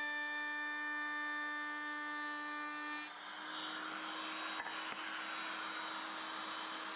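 A woodworking power tool running steadily during a run of cuts on wooden legs. For the first three seconds it gives a steady whine; after that the sound turns rougher and noisier over a steady hum, with a couple of faint clicks.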